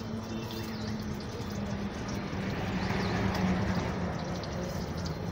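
Momos deep-frying in a kadai of hot oil, a steady sizzle as a slotted spoon stirs them, over a low steady hum.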